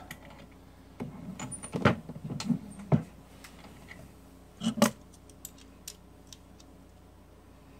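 Metal clicks and clunks from working a reloading press to seat a 224 Valkyrie bullet and handling the cartridge and calipers to check its overall length. The louder clatters come about two seconds in and near five seconds, with a few light ticks after that.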